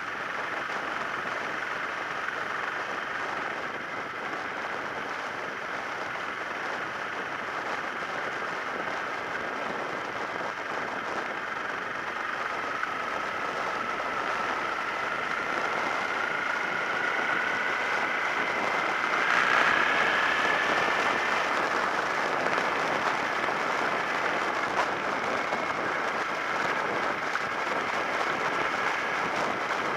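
Steady wind and road rush on the action camera of a Suzuki SV650S motorcycle at riding speed, with a thin whine that rises slowly in pitch and grows louder through the middle.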